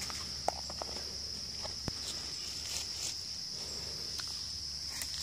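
A steady, high-pitched chorus of insects chirring in woodland, with a few light ticks and rustles of footsteps on leaf litter.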